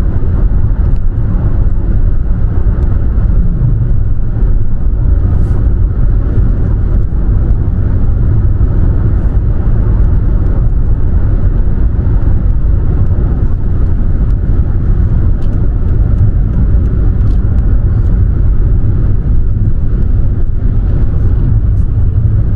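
Car driving steadily at motorway speed: a constant low rumble of road and engine noise.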